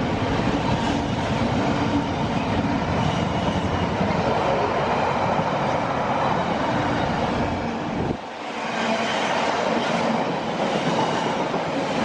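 A train passing close by at speed, with wheels running on the rails in a dense rumble and clatter. The low rumble drops away suddenly about eight seconds in.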